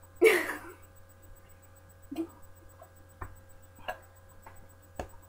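A short belch from a girl who has just gulped down cola, about a quarter-second in, followed by a few faint clicks.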